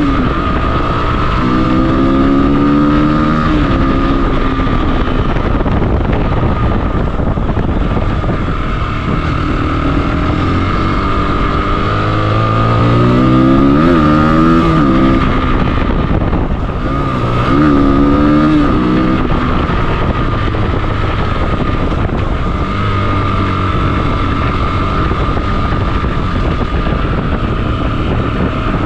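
Rieju Aventura 125's single-cylinder engine running as the trail bike is ridden, its pitch rising and falling with the throttle, most clearly about halfway through and again a few seconds later, over a steady low rush of noise.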